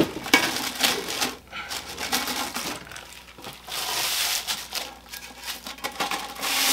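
Packaging crinkling and rustling irregularly as a speaker-stand upright is handled and pulled from its wrapping sleeve, with a couple of sharp knocks near the start.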